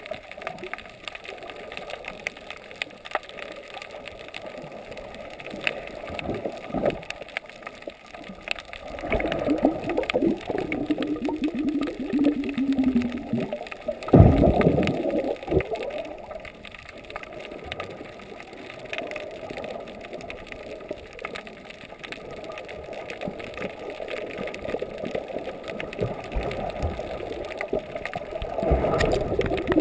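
Muffled underwater water noise from a submerged camera: gurgling and sloshing, with a low tone sliding down in pitch around ten seconds in and a loud whoosh about fourteen seconds in.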